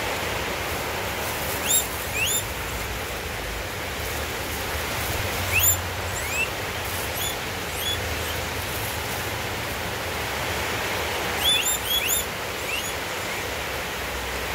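Steady background hiss with short, high, rising chirps scattered through it, a few at a time, in clusters about 2 seconds in, about 6 seconds in and about 12 seconds in.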